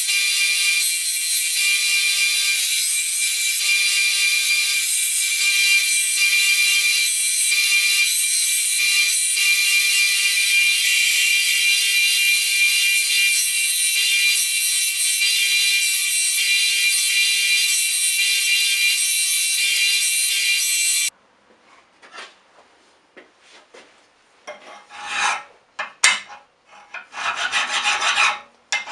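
Belt grinder running with a steel knife blank ground against the abrasive belt: a steady high hiss over the motor's whine, cutting off suddenly about 21 seconds in. After a few quiet seconds, hand-file strokes rasp across the hardened steel blade, clamped in a filing jig, in a run near the end.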